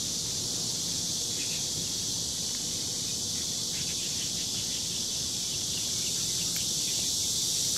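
A chorus of cicadas droning steadily and high in the trees, with a few faint taps in the middle.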